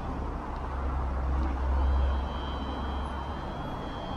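Road traffic: a car passing on the road, a low rumble that swells about two seconds in and fades, with a faint steady high whine joining about halfway.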